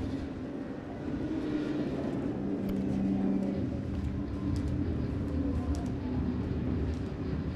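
Steady low rumble with a droning hum, and a few faint clicks in the middle.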